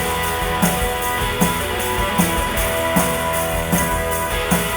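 Live rock band playing an instrumental passage: electric guitars holding chords over a drum kit keeping a steady beat.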